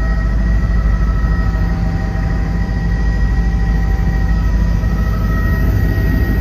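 Helicopter cabin noise in flight: a steady, loud low drone from the rotor and engine, with a thin, steady high whine above it.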